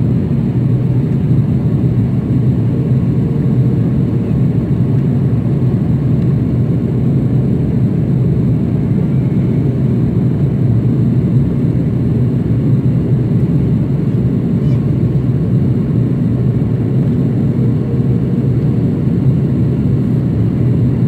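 Steady low rumble of an airliner in flight, its engine noise and rushing air heard inside the passenger cabin.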